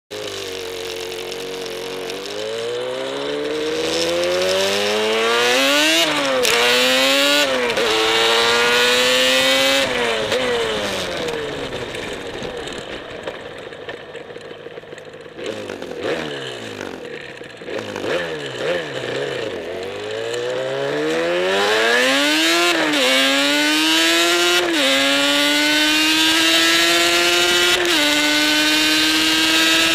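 Yamaha RZ350's two-stroke parallel-twin engine under way: it rises through the gears with quick shifts, backs off and winds down in the middle with a few short throttle blips, then pulls up through the gears again and settles to a steady cruise.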